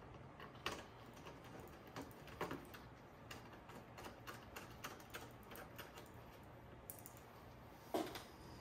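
Faint, irregular light clicks and taps of a screwdriver and small screws and parts being handled on a cassette deck's chassis during reassembly, with a few sharper knocks under a second in, around two and a half seconds in, and near the end.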